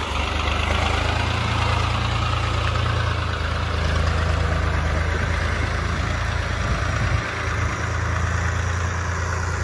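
New Holland 3630 tractor's diesel engine running steadily as it drives through a shallow pond, with water churning and splashing around its wheels. The engine's low hum dips briefly about seven seconds in.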